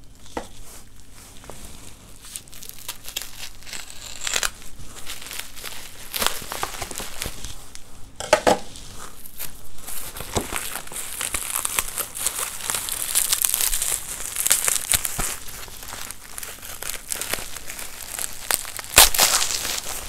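Thin plastic bag crinkling and rustling as it is handled and pulled open by hand. The crackling grows busier in the second half, with one loud crackle near the end.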